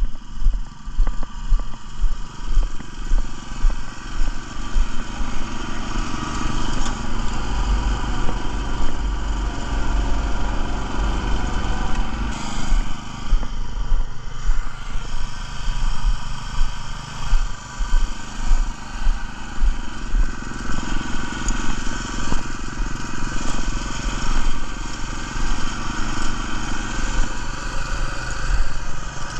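Small gasoline engine of an airless line-striping machine running steadily, with repeated low thumps mixed in.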